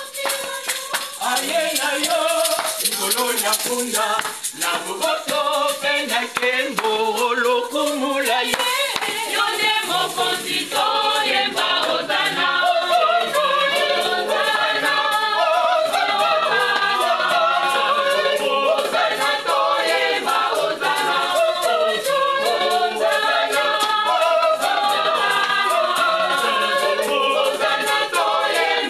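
A church choir singing a hymn together, accompanied by a shaker keeping a fast steady rhythm; the singing grows fuller about a third of the way in.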